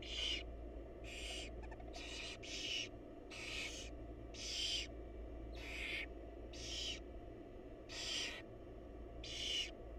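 Barn owls giving harsh, breathy hissing calls, about ten bursts each half a second long, roughly one a second and sometimes in quick pairs. A steady low hum runs underneath.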